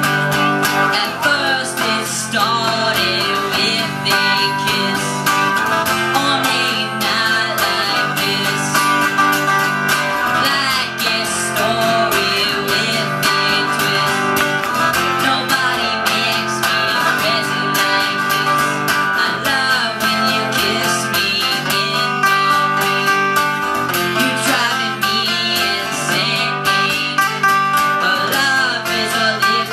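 Live music from two guitars: an acoustic guitar strummed in a steady rhythm with a second guitar playing alongside.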